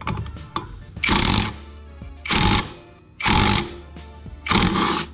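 Cordless electric impact wrench hammering on a Honda PCX 160 scooter's CVT pulley nut to loosen it, in four short bursts of about half a second each.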